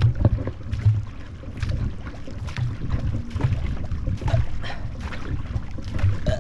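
Two paddlers stroking a C2 marathon racing canoe with bent-shaft paddles: a low thump and splash with each stroke, about once a second, over the steady rush of water along the hull.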